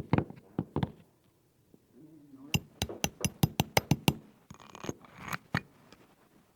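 Hammer striking wood: a few blows, then a quick run of about nine even blows, then a couple more.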